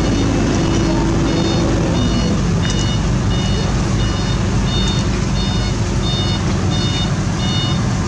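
Reversing alarm beeping about every two-thirds of a second over the steady low rumble of heavy diesel engines. The beeps grow louder about three seconds in.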